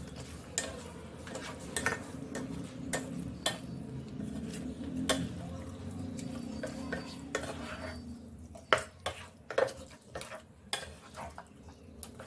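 Black slotted spatula stirring raw marinated chicken pieces through thick masala in a nonstick pan: irregular clacks and scrapes of the spatula against the pan. A low steady hum runs underneath and fades about eight seconds in.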